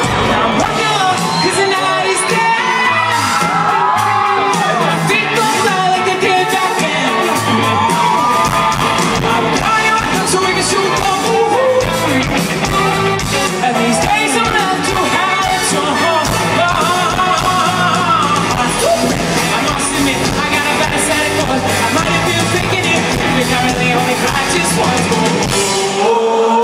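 Live pop band playing a song with lead vocals, heard from within the audience through an iPod's microphone, with yells and whoops from the crowd.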